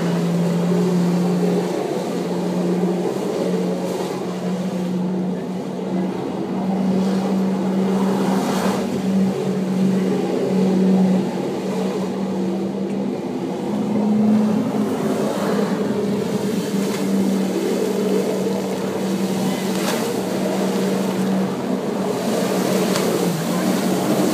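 Jet ski engine running steadily under throttle, driving a flyboard's water jet through its hose, with a humming note that wavers and rises briefly about halfway through. The hiss of water spray runs underneath.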